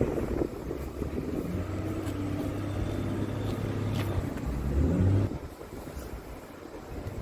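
Vehicle engine running with a low steady hum, its pitch rising briefly about four and a half seconds in before it cuts off a little after five seconds.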